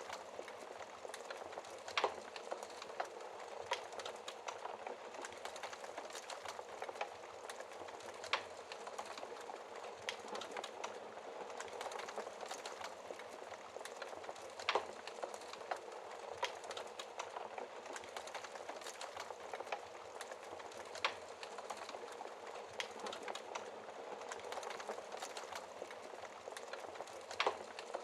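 Wood fire burning in a fireplace, heard through its glass shield: a steady soft hiss with frequent small crackles and a sharp louder pop about every six seconds.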